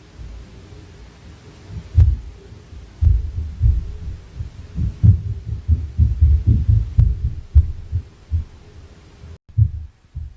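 Floor-impact noise from the apartment upstairs, coming through the ceiling: dull low thuds of footsteps and stomping. A heavy one lands about two seconds in, then rapid, irregular runs of thumps follow for several seconds.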